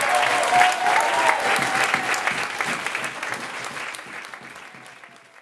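Audience applauding after a performance, the clapping dying away steadily toward the end.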